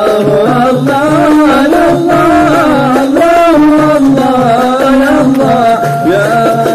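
Live Arabic qasidah music from a gambus and marawis ensemble: hand drums keep a steady repeating beat under a wavering, ornamented melody line.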